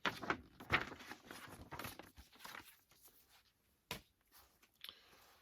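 Packaging being handled: rustling and crinkling with small knocks for about three seconds, then a sharp click about four seconds in and a brief rustle near the end.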